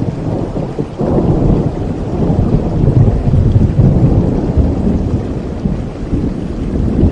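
Rolling thunder over steady rain: a deep rumble swells about a second in, is loudest midway, then eases off.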